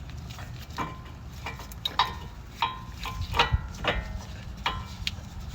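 Irregular sharp metallic clicks and clinks, some ringing briefly, as new brake pads are set into a Toyota C-HR's brake caliper bracket.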